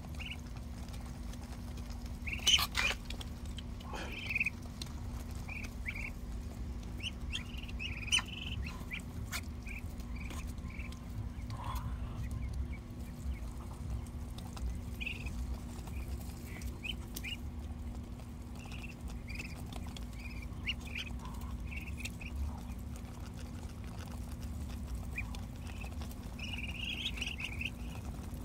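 Young Muscovy ducklings giving short, high peeps, scattered and overlapping. A few sharp clicks, the loudest about two and a half, four and eight seconds in, over a steady low hum.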